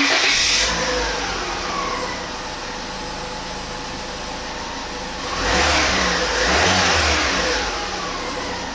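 Peugeot 307's 1.6 16-valve engine starting, with a brief flare of revs, then settling into a steady idle. About five and a half seconds in it is revved up twice in quick succession, then drops back to idle.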